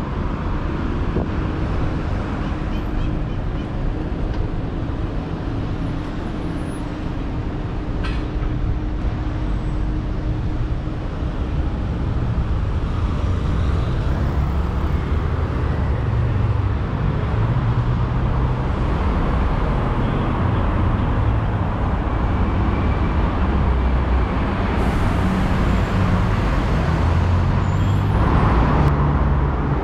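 Steady road traffic on a busy avenue: engines and tyre noise from passing vehicles, with a steady engine drone through about the first twelve seconds.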